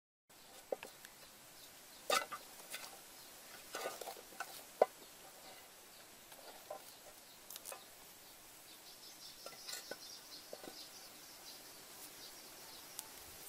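Scattered sharp clicks and knocks of a knife and utensils against a woven tray and dishes as melon is cut and handled, the loudest a single knock about five seconds in. A bird chirps faintly a few times near the middle.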